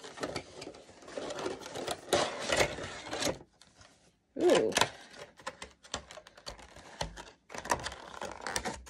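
Clear plastic blister packaging crackling and clicking in quick, irregular clicks as it is turned in the hands, with a short pause a few seconds in.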